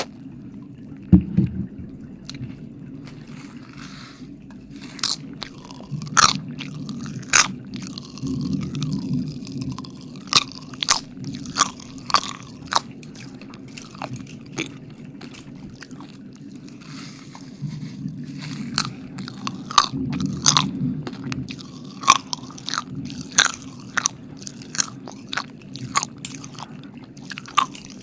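Close-miked wet mouth sounds: irregular sharp clicks and smacks of lips and tongue, coming in clusters, over a low steady hum.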